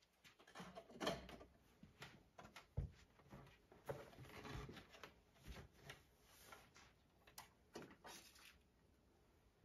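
Faint handling noises of tidying a nail-care desk: small bottles and a plastic caddy being picked up and set down, with scattered soft knocks, clicks and rubbing.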